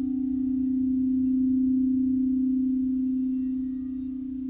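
Singing bowl sustaining one steady, nearly pure tone that swells slowly, then eases off a little near the end.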